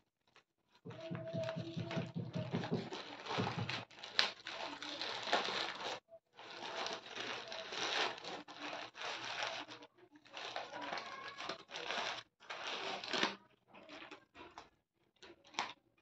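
Packaging crinkling and rustling in irregular bursts as a parcel is handled and opened.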